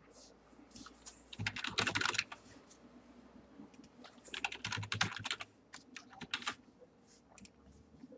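Computer keyboard typing in two quick flurries of keystrokes, one about a second and a half in and another from about four to five and a half seconds in, with a few lone key taps between and after.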